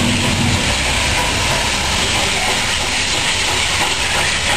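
NSW C36-class steam locomotive 3642 working hard up a grade as it approaches, heard before it comes into view: a steady rumble and hiss with no distinct beat.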